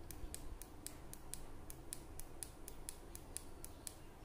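Push-buttons on a digital soldering iron's handle clicking in quick, even succession, about four clicks a second, as the set temperature is stepped with repeated presses.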